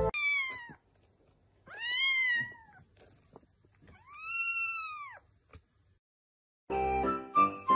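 A kitten meows three times in high-pitched calls. The first call is short and falling; the second and third each rise and then fall. Music starts near the end.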